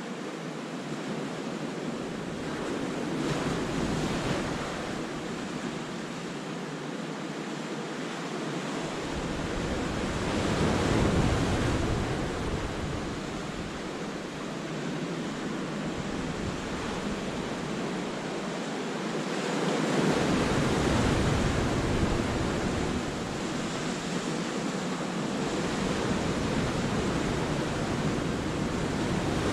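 Sea waves breaking and washing among the rocks of a cove, swelling louder every several seconds. Wind rumbles on the microphone at times.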